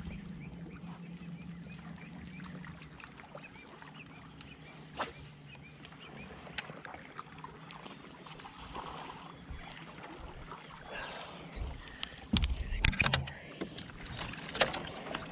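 A largemouth bass being played and landed from a bass boat's front deck: scattered small clicks and light splashing, with a low trolling-motor hum that fades after about two seconds. Then a loud burst of knocks and splashing about twelve seconds in as the fish comes aboard.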